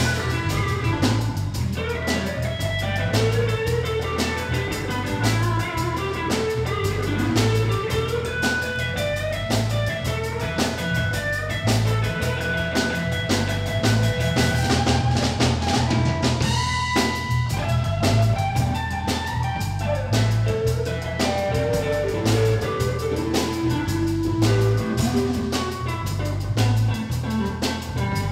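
Live blues band playing an instrumental passage: electric guitar lines over a pulsing bass guitar and a steady drum kit beat.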